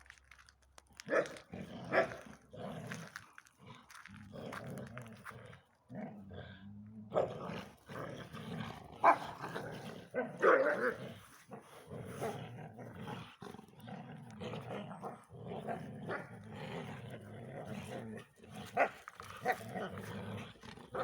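Two dogs, a Belgian Tervuren and a bull terrier cross, growling in play over a ball, a low rumbling growl that goes on almost without a break, with a few short, sharp barks or yelps.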